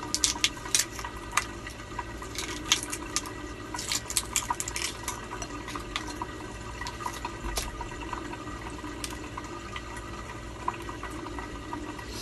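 Small crackles and clicks of eggshell being peeled off a boiled egg by hand, thickest in the first five seconds and sparser after. Under them runs a steady trickle of water, as from an aquarium filter.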